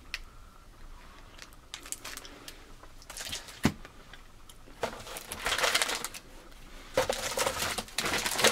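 Plastic snack wrappers rustling and crinkling as hands rummage through a cardboard snack box, with one sharp click a little past halfway. The rustling comes in two louder spells over the second half.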